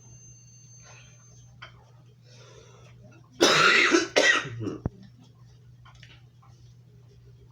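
A man coughing twice in quick succession about halfway through, with a few faint handling clicks before it.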